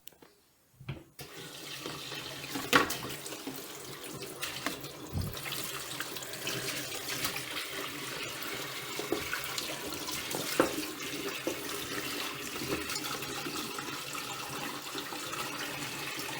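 Tap water running into a sink, starting about a second in, as desk fan blades are washed under it. A few sharp knocks come through the running water.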